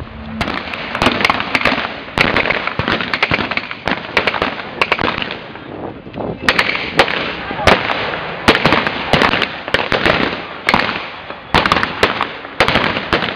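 Blank-firing rifles and other small arms of a reenacted firefight: irregular gunfire, single cracks and quick strings of shots several times a second, with short lulls near the middle and end.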